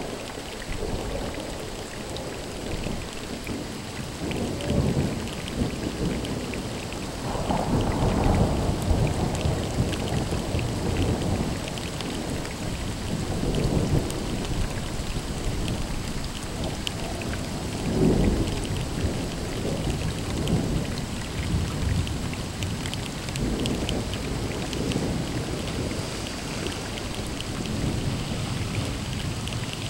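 Thunderstorm: steady rain falling with rolls of thunder rumbling through it several times, the loudest swells about 8 and 18 seconds in.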